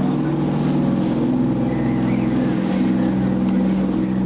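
Boat engine running steadily with an even, low hum, a hiss of wind and water above it.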